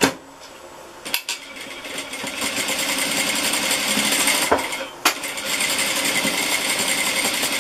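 Sewing machine stitching a seam through layers of cotton cloth. It speeds up to a steady run about a second in, stops for a moment just before five seconds in, then runs on.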